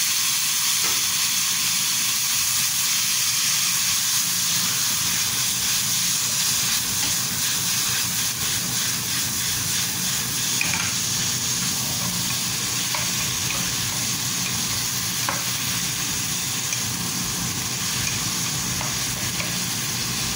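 Sliced bottle gourd sautéing in hot oil in a frying pan: a steady sizzle, with the pan tossed and the vegetables stirred with a wooden spatula, giving a few light taps.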